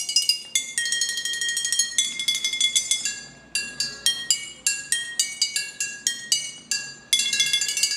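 Tuned glass bottles struck to play a melody, each strike ringing with a clear glassy pitch. Notes are rolled with rapid repeated strikes at first, then played as separate single notes in the middle, and rolled again near the end.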